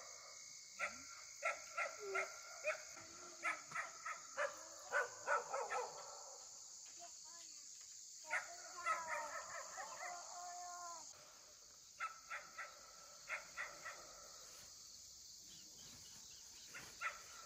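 A dog whining and yelping in clusters of short, high calls with pauses between them, over a steady high drone of insects that drops in level about eleven seconds in.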